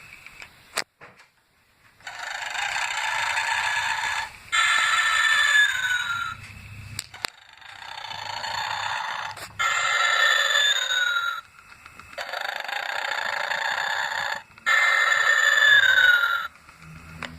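Gemmy snoring Santa toy playing its recorded snoring through its built-in speaker: three snore cycles, each a rasping in-breath followed by an out-breath ending in a whistle that falls in pitch. A few sharp clicks come between the snores.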